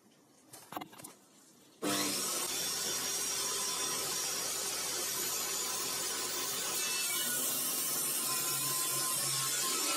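A few light clicks, then a homemade table saw comes in suddenly and runs loud and steady, its blade cutting a board pushed through with a push stick.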